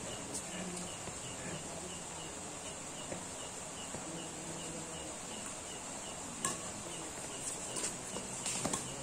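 Insects chirping steadily, a high hiss with a regular chirp about three times a second, under the sharp cracks of badminton rackets striking a shuttlecock: one hit about two thirds through, then a few quick hits near the end as a rally gets going.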